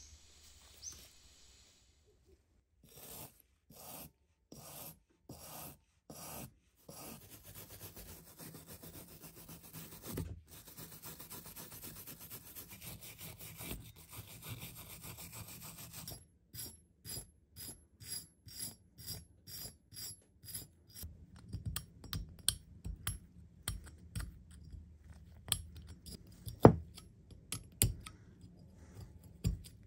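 Rust being scrubbed and scraped off a corroded iron axe head by hand. A small brush makes short separate strokes, then scrubs continuously for several seconds. Later a pointed metal pick scratches and clicks in the notches of the blade, with a few louder sharp scrapes.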